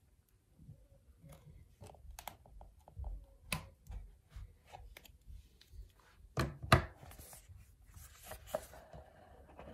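Knife blade scraping and cutting through the tape seal on a small rigid cardboard box, with light scratches and clicks. About two-thirds of the way through come two louder knocks, then a rustling slide as the box is lifted and opened.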